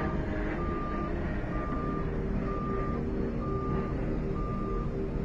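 A vehicle's reversing alarm beeping steadily, about one beep a second, over the low rumble of an engine.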